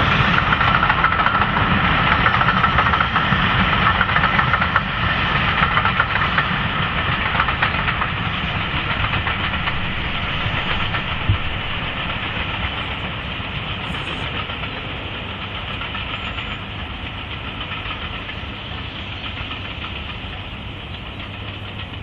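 Steam locomotive hauling a train of coaches past, the sound of the engine and the rolling coaches fading steadily as it moves away. There is one short knock about eleven seconds in.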